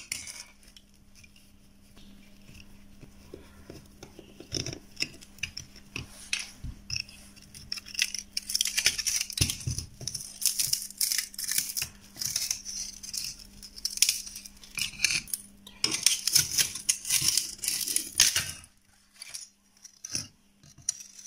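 Clicks, rattles and scraping as a burnt switch-mode power supply circuit board is worked loose from its aluminium mounting plate and handled with a screwdriver, with a steady low hum underneath.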